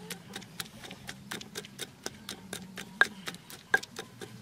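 Wooden pestle pounding red chilies and garlic into a wet paste in a stone mortar: an even run of soft knocks at about four strokes a second.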